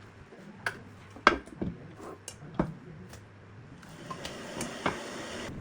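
Kitchen utensils and dishes being handled: a handful of separate sharp knocks and clicks, then a steady hiss for about a second and a half that cuts off suddenly near the end.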